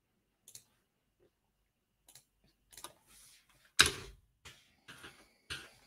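Scattered clicks from a computer mouse and keyboard, about seven separate taps, the loudest a little past the middle.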